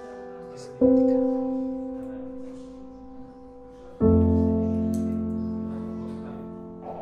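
Slow background piano music: two sustained chords, struck about a second in and about four seconds in, each ringing out and fading.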